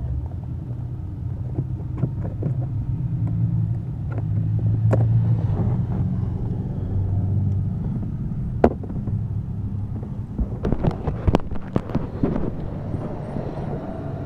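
Small plastic clicks and taps from working a blown 15-amp fuse out of a car's interior fuse box: one sharp click a little past halfway, then a quick cluster of clicks near the end, over a steady low rumble.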